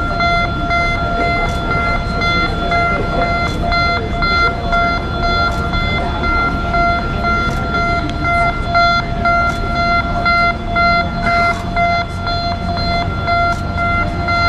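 Electronic warning alarm beeping, a steady high tone pulsing on and off rapidly and evenly, over a continuous low rumble.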